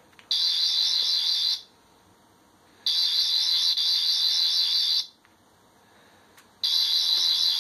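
A 12th Doctor sonic screwdriver TV remote plays its high-pitched electronic sonic buzz in three bursts of one to two seconds each while it is used to send commands to a TV.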